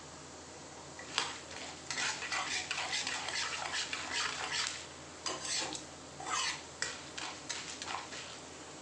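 A spoon stirring tempering spices (mustard seeds, cumin, urad and chana dal) frying in oil in a kadai, scraping against the pan in irregular strokes with a few clicks. The stirring starts about a second in and stops shortly before the end.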